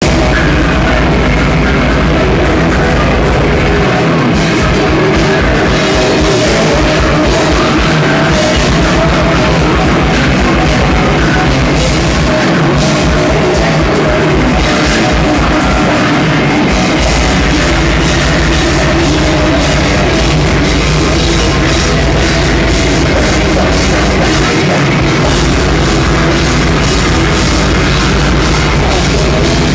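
Metal band playing live and loud: distorted electric guitars, bass and drum kit, with stretches of rapid kick-drum pulses. Level stays high and flat throughout.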